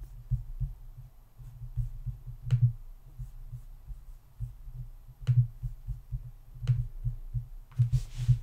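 Computer mouse clicks, three sharp ones a few seconds apart, over a low, irregular thumping, with a short rustle near the end.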